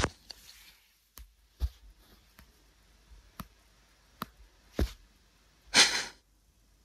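Fingertip taps on an iPad touchscreen: a handful of light, irregular taps, with a short rustling noise about six seconds in.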